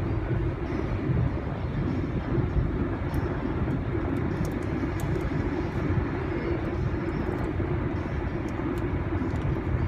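Steady low rumble of a car being driven, heard from inside the cabin: engine and tyre-on-road noise.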